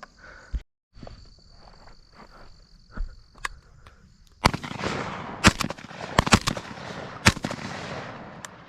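Shotgun fire from dove hunters: about half a dozen sharp cracks in under three seconds, starting about halfway through, over a noisy rush that fades away afterwards.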